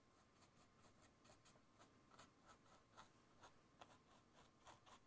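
Faint, quick taps and scratches of a paintbrush dabbing acrylic paint onto a stretched canvas, about five small ticks a second, unevenly spaced.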